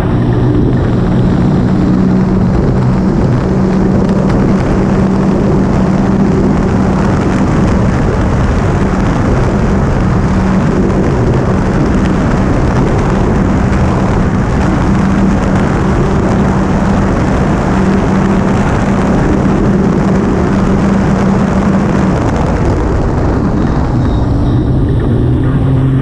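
Small motor watercraft under way at speed: its engine drones steadily under heavy wind and water rush on the microphone. The steady engine tone drops out a few seconds before the end, then a rising rev comes in near the end.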